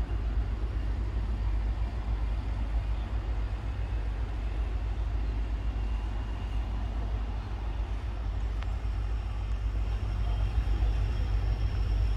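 Diesel locomotives running in a rail yard, a steady low rumble with a faint high whine coming in near the end.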